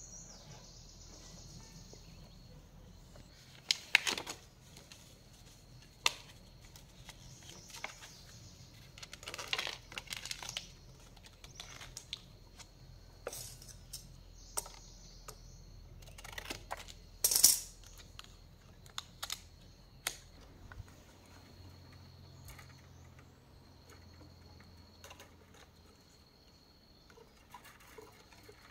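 Scattered sharp clicks, snips and short rustles of hand work at a coil winder: scissors cutting a sheet of insulating material and the wound bobbin being handled. The clicks come irregularly, some much louder than others, and thin out in the last few seconds.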